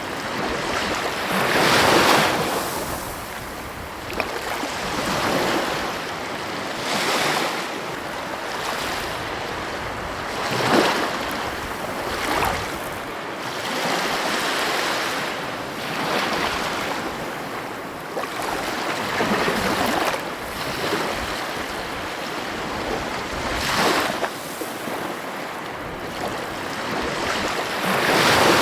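Ocean waves breaking on a beach, with a louder surge of surf every few seconds over a steady wash, and some wind on the microphone.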